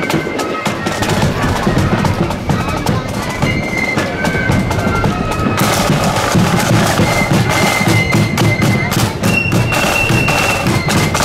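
Marching flute band playing a tune, shrill held flute notes over the steady beat of snare and bass drums.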